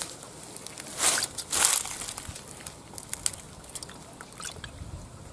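Close handling noise: two brief rustling scrapes about a second in, then scattered faint clicks as hands work a fishing line and hook over a bucket.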